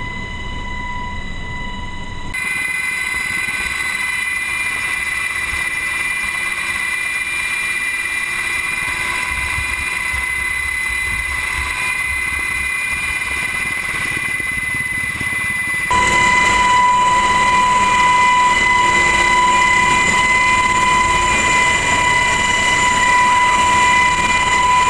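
Helicopter noise heard from inside the cabin: a loud, steady engine and rotor din with a high, steady whine. It jumps abruptly louder twice, a couple of seconds in and again about two-thirds through.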